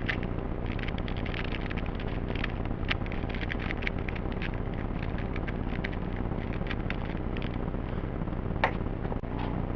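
2x2 pocket cube being scrambled by hand: quick runs of small plastic clicks as its layers are turned, densest over the first few seconds, then sparser, with one sharper click near the end. A steady low hum runs underneath.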